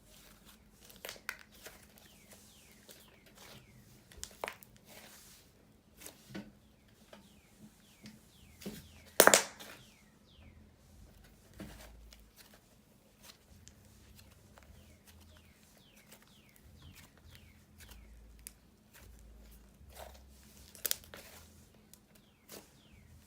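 Slime being squished and stretched by hand, making scattered sticky clicks and small air-bubble pops, with one louder pop about 9 seconds in.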